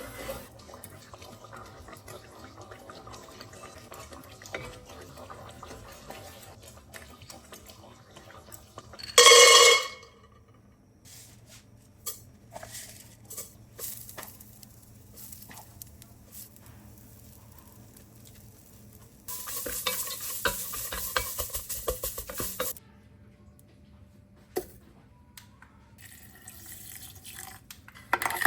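Cooking in a pan on the stove: a utensil stirring and scraping with light sizzling and occasional clinks. There is one short loud burst a little after nine seconds, and about three seconds of louder crackling and clattering around twenty seconds in.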